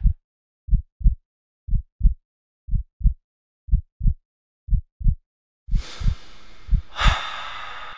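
Heartbeat sound effect: pairs of short low thumps, lub-dub, about once a second. From about six seconds in a hiss swells up under it, with a sharp hit just after seven seconds.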